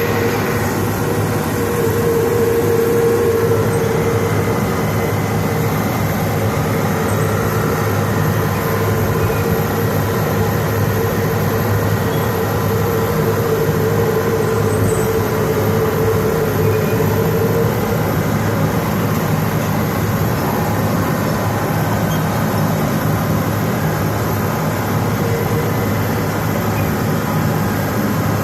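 Old International bulldozer running steadily, heard close up, with a steady whine over the engine that fades out about two thirds of the way through.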